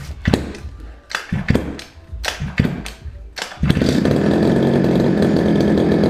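Go-Ped GP460's rebuilt two-stroke engine being pull-started on its first start. Several quick yanks of the recoil starter turn it over, then about three and a half seconds in it catches and runs steadily.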